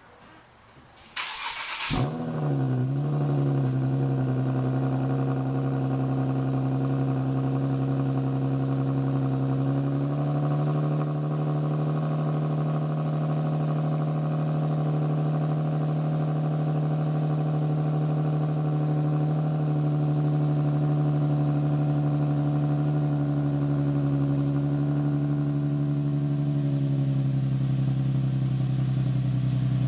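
Nissan 370Z's 3.7-litre V6 with its mufflers deleted (straight-pipe exhaust) starting: the starter cranks for under a second, the engine catches, and it settles into a loud, steady raised idle. The idle steps down slightly about a third of the way through and again near the end.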